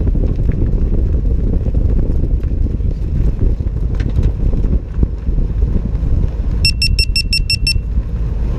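Wind buffeting the microphone of a camera mounted on the outside of a moving car, over a dense low road rumble. About two-thirds of the way through comes a quick run of about eight short electronic beeps, lasting about a second.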